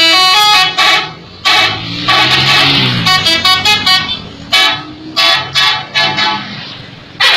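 Bus 'telolet' horn, a multi-tone musical horn playing a stepping melody, then sounded in a string of short, loud blasts with brief gaps between them.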